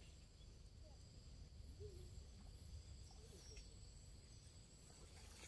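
Near silence: faint outdoor ambience of insects calling in a steady high drone, over a low rumble.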